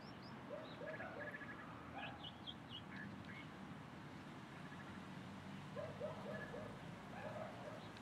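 Faint calls of several wild birds: scattered short high chirps, and groups of three or four quick, lower arched notes, twice near the start and again in the second half. A low steady hum lies underneath.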